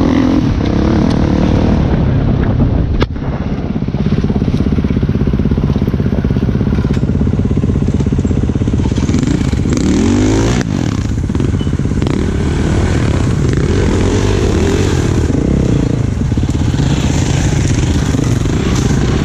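Off-road dirt bike engines running at close range, the revs rising and falling as the bikes pick their way over rough trail, with a quick climb in revs about ten seconds in.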